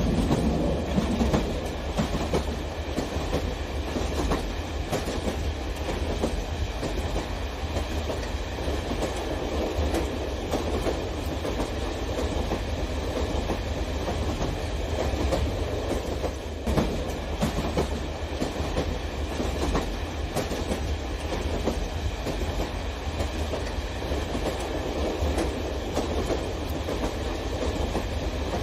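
Model electric train pulling a long string of container wagons on plastic sectional track: a steady motor hum under the rattle and light clicking of the wagon wheels over the rail joints.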